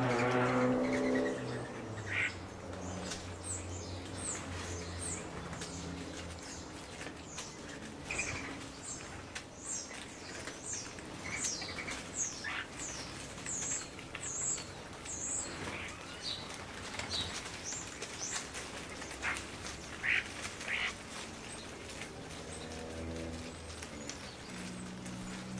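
A flock of European starlings feeding on the ground: wing flutters and many short, high whistles and chirps, with a quick run of whistled notes through the middle. A low hum is loudest at the start and comes back near the end.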